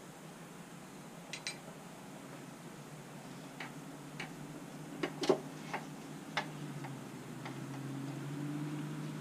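Light metallic clicks and taps, spread irregularly with the loudest about five seconds in, from handling connecting rod caps, rod bolts and pistons inside a 6.4 Hemi short block. A low steady hum grows louder in the second half.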